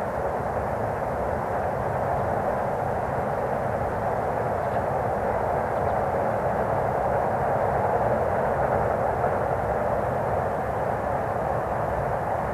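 Distant E217-series electric train crossing a long steel truss bridge: a steady far-off rumble that swells a little in the middle and eases toward the end.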